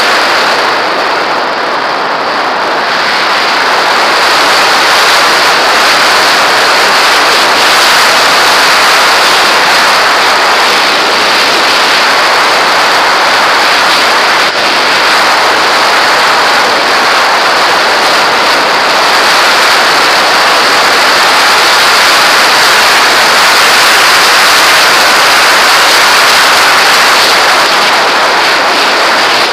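Airflow rushing over a model glider's onboard camera in flight: a loud, steady rush of wind noise on the microphone, with no motor or propeller tone, easing slightly a couple of seconds in.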